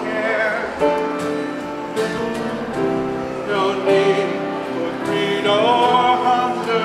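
Singing voices over instrumental backing music.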